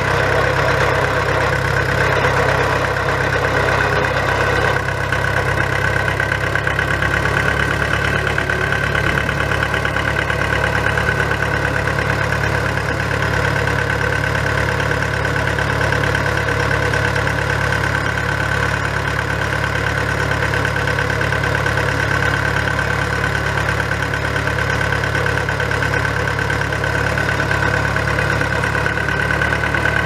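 Husqvarna FS6600D concrete saw's John Deere four-cylinder turbo diesel engine running steadily at idle.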